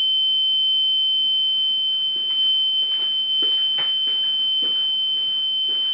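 Piezo alarm buzzer sounding one continuous high-pitched tone, with a few faint clicks in the second half. The buzzer is set off when heat makes the graphene oxide fire sensor in the wallpaper conduct.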